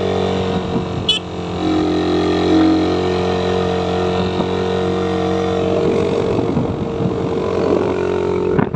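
Suzuki Raider 150 motorcycle engine running steadily while being ridden, its pitch holding fairly even.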